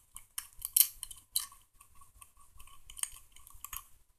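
Small scissors snipping the sewing thread at the end of a seam. A run of irregular short snips and clicks, the sharpest about a second in.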